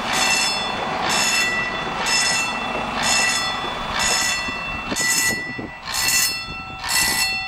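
Level-crossing warning bell ringing about once a second, warning road traffic that a train is on the crossing, over the low rumble of an agilis railcar rolling past on the rails.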